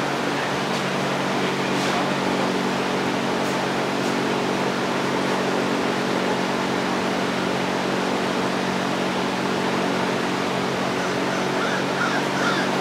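Steady mechanical hum with a constant rushing noise behind it, even throughout.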